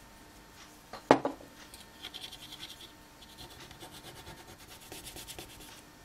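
A sharp knock about a second in, then quick repeated scratching and rubbing strokes on a microwave control-panel circuit board as grime, which may be leaked tape adhesive, is worked off it.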